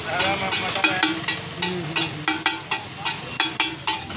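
A metal spatula clanks on a large flat griddle (tawa) in a steady rhythm, about four or five strikes a second, as pav bhaji gravy is stirred and mashed, with food sizzling underneath.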